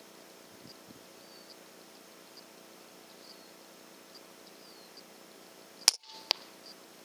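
A single shot from a moderated .25 Brocock Concept XR PCP air rifle: a sharp crack about six seconds in, followed less than half a second later by a second sharp smack as the pellet hits the ground squirrel. A faint high chirp repeats about once a second in the background.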